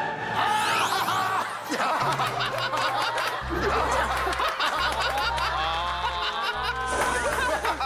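Several people laughing and chuckling over background music with a low bass line.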